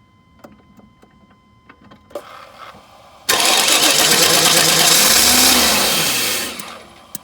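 Chevrolet Silverado 2500 pickup engine being cranked on the starter, catching for about three seconds with its pitch rising and then falling, then dying out, with a sharp click near the end. It is a start-and-stall, no-sustained-run fault that the owner traced to the truck's anti-theft security system.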